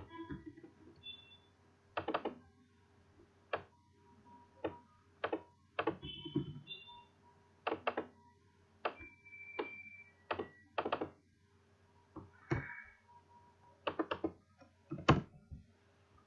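Computer mouse clicks and keyboard key presses: about twenty sharp clicks at irregular intervals, several in quick pairs, the loudest about fifteen seconds in.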